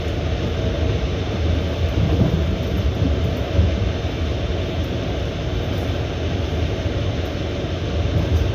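Steady running rumble of a moving passenger train heard from inside the carriage: wheels rolling on the rails.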